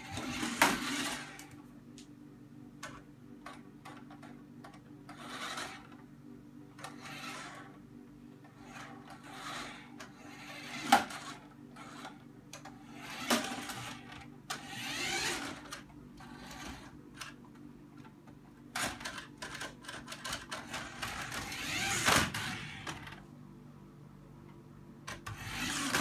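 Small electric motor and gears of a toy remote-control car whirring in short bursts, each about a second long, as it is driven in spurts, some rising and falling in pitch. A few sharp clicks and a steady low hum sit underneath.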